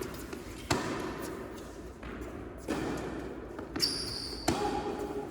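Tennis ball being hit and bouncing in a rally on an indoor court: four sharp knocks, with a brief high squeak between the last two, echoing in the large hall.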